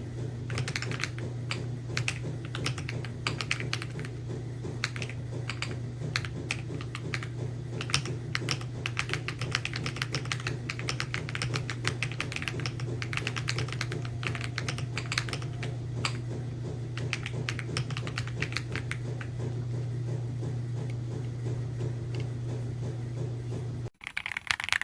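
Fast, continuous typing on an AULA F99 mechanical keyboard with pre-lubed linear switches: a dense run of thocky keystrokes over a steady low hum. Both stop abruptly near the end.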